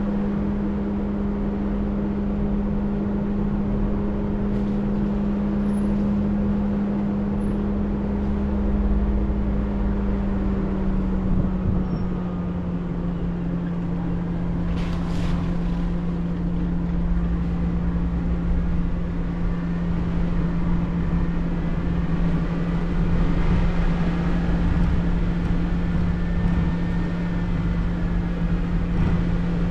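Off-road vehicle's engine running at a steady speed on a trail, a constant drone over low rumble that drops slightly in pitch about twelve seconds in. A brief knock about fifteen seconds in.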